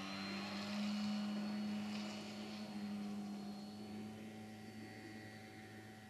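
Radio-controlled model seaplane's motor running at high throttle during take-off from the water, its pitch rising slightly about a second in, then slowly fading as the plane climbs away.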